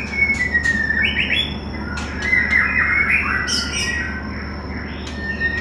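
White-rumped shamas (murai batu) calling: a string of whistled and gliding notes, a burst of rapid harsh chattering in the middle, and sharp ticking calls throughout.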